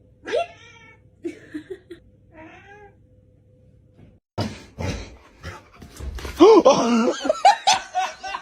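A cat meowing: three or four short meows that rise and fall in the first three seconds. After a short pause, a louder stretch of knocks and wavering calls follows.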